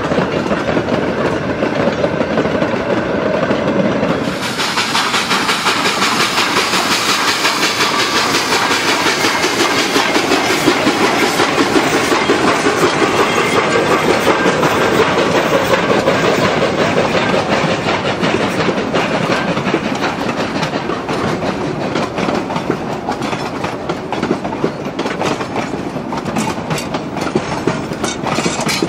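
Durango & Silverton narrow-gauge passenger coaches rolling past: a steady rumble with wheels clicking over the rail joints. The sound changes abruptly about four seconds in as another passing train takes over.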